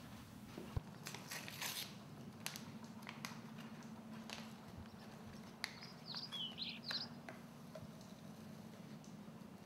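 Faint crinkling and tearing of a powder sachet, with a sharp click just under a second in and crackles over the next second. A few faint bird chirps come around six to seven seconds, over a steady low hum.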